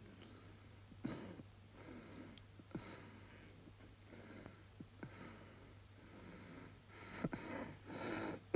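Strained breathing of a man lying wounded from a gunshot, about one breath a second, growing louder near the end. A low steady hum runs underneath.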